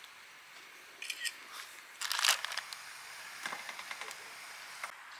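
Aluminium foil wrapped around a roasted sweet potato crinkling as it is handled, in short rustles, the loudest about two seconds in, with a few light clicks after.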